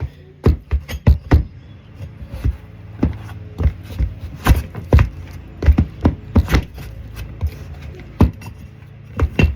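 A run of sharp, irregular knocks and taps, about a dozen strong ones, from hand tools striking a lawn mower wheel and tire, over a low steady hum.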